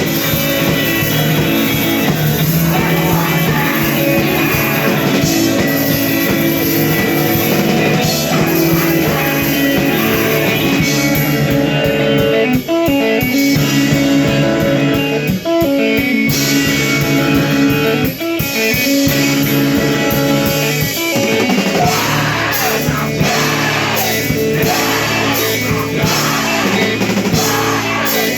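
A live emo rock band playing: electric guitars and a drum kit, with some singing. A few brief, sharp breaks come around the middle.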